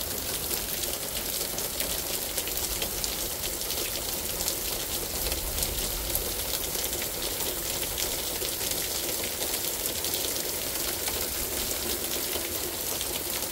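Heavy thunderstorm downpour: rain falling hard and steadily, a dense hiss of drops striking the ground and standing water.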